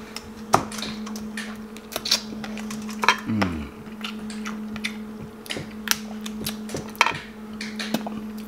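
Close-miked eating sounds: scattered sharp, wet clicks and cracks as crab and shrimp meat is pulled apart by hand and chewed, over a steady low hum.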